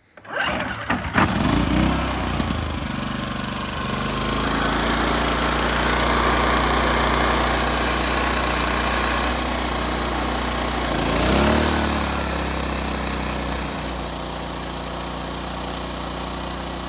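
Small secondhand petrol generator engine starting and settling into a steady run, its carburettor now fitted the right way round. The engine speed rises and falls back once about eleven seconds in.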